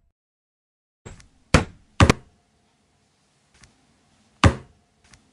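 A series of sharp knocks or thuds, unevenly spaced, with a quick pair about two seconds in and another loud knock later. These are cartoon hitting sound effects.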